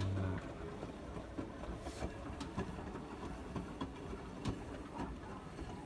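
Hotpoint WT761 Ultima washing machine running: a steady low rumble with scattered clicks and knocks, and a short low hum right at the start.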